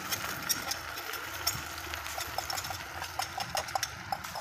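Chopped ginger, garlic and green chillies frying in hot oil in a kadai, sizzling with many small sharp crackles, over the steady low rumble of the gas burner.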